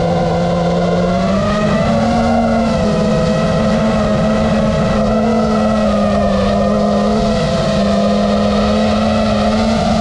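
FPV multirotor's motors and propellers whining, heard close from the craft's onboard camera. The pitch steps up about a second and a half in and then wavers up and down with the throttle.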